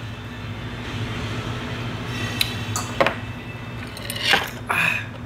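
Restaurant room tone: a steady low hum with a few sharp clinks of tableware, two of them about halfway through.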